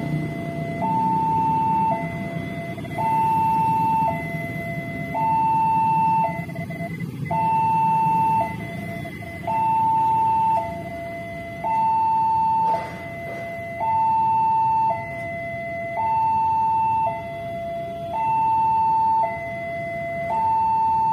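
Railway level-crossing warning alarm sounding: an electronic two-tone signal alternating high and low, each tone lasting about a second, steady and repeating. It means the crossing is closed for an approaching train.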